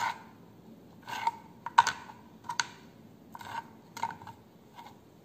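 Kitchen knife chopping fresh coriander leaves on a cutting board: clusters of quick knocks of the blade striking the board, about every half second to second, thinning out and stopping near the end.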